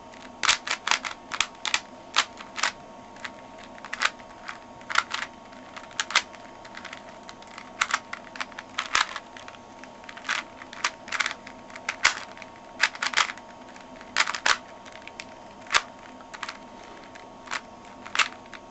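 Rubik's Cube being scrambled by hand: its layers turned in quick, irregular runs, each turn a sharp plastic click, often several in a row with short pauses between.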